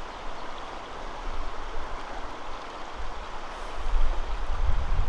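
Shallow river running over a stony bed: a steady rushing hiss, with low rumbling swelling in over the last second and a half.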